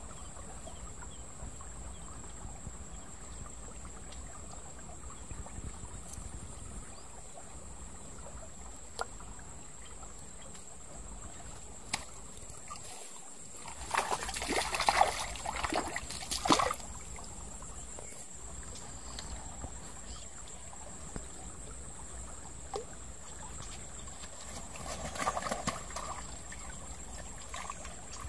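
Shallow stream water trickling steadily, with louder bursts of splashing about halfway through and again near the end.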